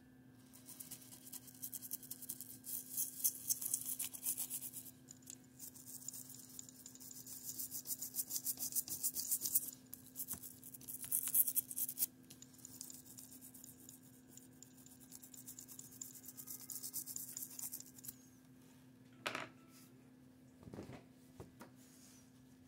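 Rapid scrubbing and rubbing strokes on a 1941 Argus AA camera during cleaning, in several spells of a few seconds each. Two brief separate noises follow near the end.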